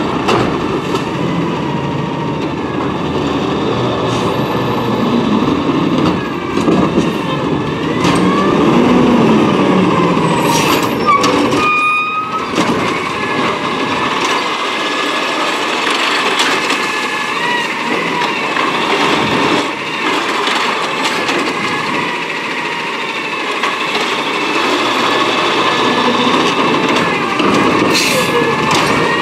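Peterbilt 320 refuse truck's engine running as it pulls up and stops, its pitch sliding as it slows, with a brief high squeal about halfway through. It then runs steadily while the truck stands stopped.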